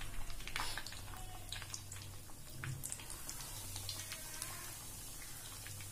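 Bread-crumbed chicken cutlets deep-frying in oil over low heat: a soft, irregular crackle of small pops. A steady low hum runs underneath.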